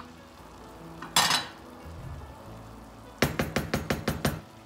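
A wooden spoon knocking against the side of a nonstick pan while stirring rice pilaf: a quick run of about nine sharp strikes late on, after a brief clatter about a second in.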